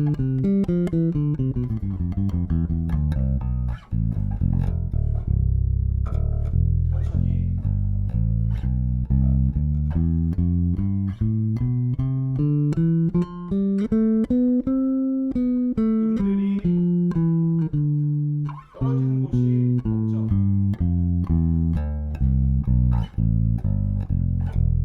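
Sandberg Masterpiece five-string electric bass, recorded direct, played note by note in scale runs. The notes step down, then climb steadily for several seconds and come back down, with two brief breaks in the playing.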